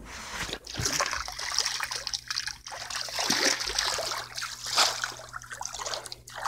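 Floodwater in a flooded crawl space splashing and trickling in uneven surges.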